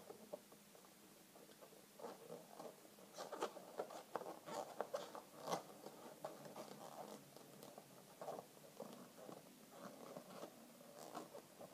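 Inflated latex twisting balloons squeaking and crackling as hands twist and squeeze them together, in irregular rubs and clicks that are busiest a few seconds in and again near the end.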